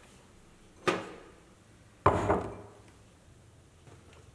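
Dry wheat cereal flakes poured from the box into ceramic bowls in two short bursts: a quick clatter about a second in, then a longer rattling pour about two seconds in.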